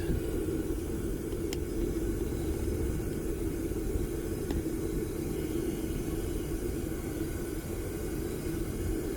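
Homemade propane furnace burner running with a steady, low rushing noise while it melts brass, with a couple of faint ticks.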